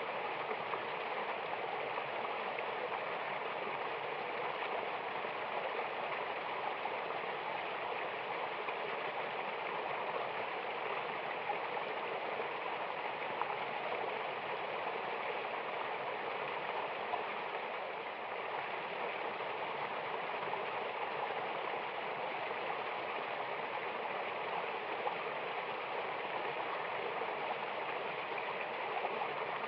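Mountain waterfall and stream flowing: a steady, even rush of falling and tumbling water with no let-up.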